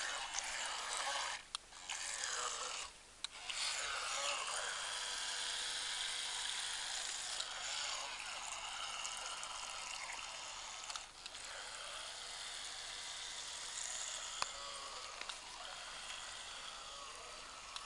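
Battery-powered radio-controlled boat running on the water, its electric motor whining with a pitch that shifts as the throttle changes. The whine cuts out briefly twice, about one and a half and three seconds in.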